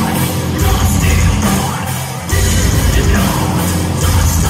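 Heavy metal band playing live: distorted guitars, bass and drums under the singer's vocals. The heavy low end thins out briefly and comes back in full a little over two seconds in.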